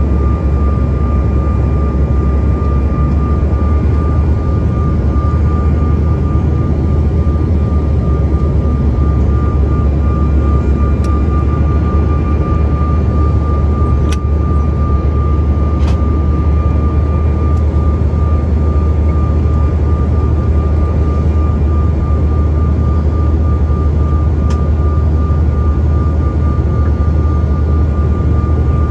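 Steady cabin noise of an airliner in flight: a heavy rumble of engines and rushing air with a steady high whine running through it.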